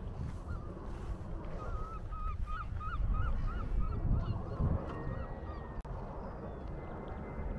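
A bird calling in a quick run of about eight short notes, roughly three a second, early in the stretch, over steady wind rumble on the microphone.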